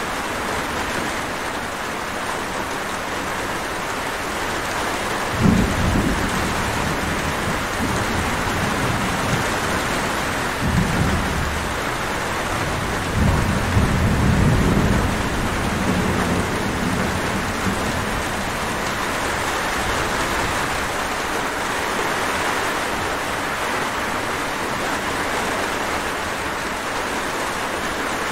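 Steady heavy rain with thunder: a low rumble about five seconds in, another near eleven seconds, and a longer roll a couple of seconds after that.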